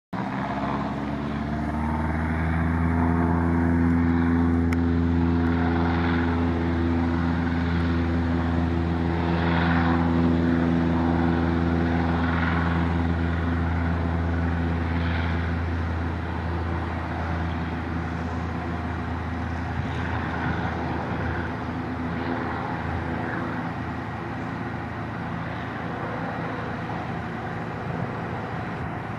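Single-engine propeller floatplane at takeoff power: the engine drone climbs in pitch over the first couple of seconds as it opens up, holds steady through the takeoff run on the water, then fades gradually in the second half as the plane lifts off and moves away.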